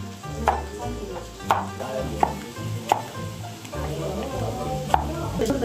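Cleaver chopping cucumber on a thick wooden chopping block: five sharp single knocks, roughly a second apart.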